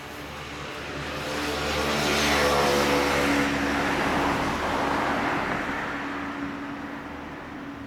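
A road vehicle passing by: its noise swells over the first two seconds or so, peaks, then fades away over the next several seconds.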